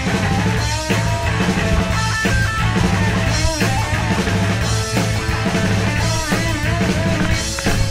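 Rock music with electric guitar and drums.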